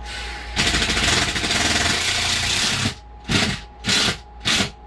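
Cordless screw driver running a screw up into an overhead wooden furring strip, a steady rattling run of about two seconds, then three short trigger bursts as the screw is seated.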